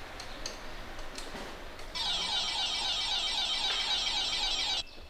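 An electric bell rings loudly for about three seconds, starting about two seconds in and cutting off suddenly, over a faint steady background.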